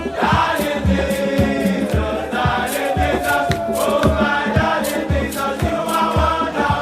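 Music with a group of voices singing over a steady drum beat.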